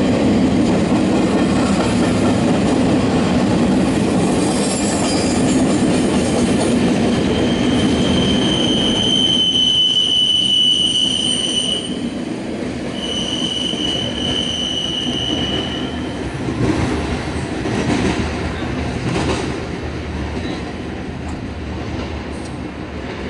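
CSX intermodal freight train's double-stack well cars rolling past: a loud low rumble of wheels on rail, with two long, high, steady wheel squeals about halfway through. The rumble drops off as the tail end passes, with a few sharp knocks near the end.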